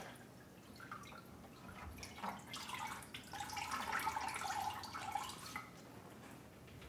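Brine dripping and splashing back into the briner bucket as a whole brined turkey is lifted out of it, in many small drips that come thickest in the middle.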